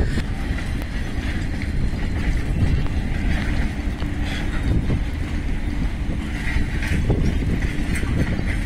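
Freight train of container flat wagons rolling past: a steady rumble with a few faint clicks of the wheels.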